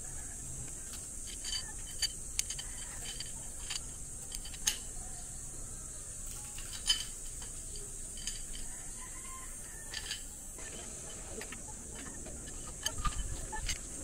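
Scattered light clicks and clinks of tools and metal parts being handled during the bike build, at irregular intervals and bunching up near the end, over a steady high hiss.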